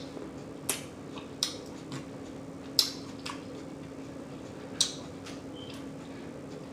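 Mouth smacking while chewing food: about five short, sharp smacks, spaced irregularly.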